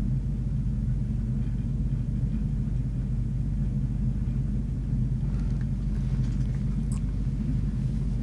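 Steady low hum of office room noise, unchanging, with a few faint clicks about five to seven seconds in.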